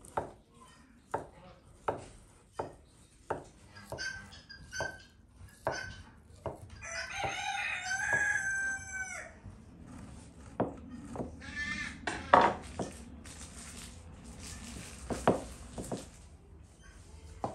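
Knife chopping through a sausage onto a wooden cutting board, a sharp knock about every 0.7 seconds. About seven seconds in a rooster crows once for about two seconds. Near the end cheese is scraped on a metal box grater.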